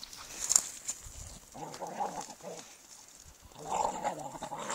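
Dogs growling while they play-fight, in two rough bouts of about a second each, the first a second and a half in and the second near the end.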